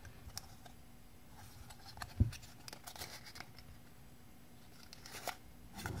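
Small clicks and faint rubbing of a 3D-printed PLA toy pocket knife being handled in the hands, with one dull thump about two seconds in.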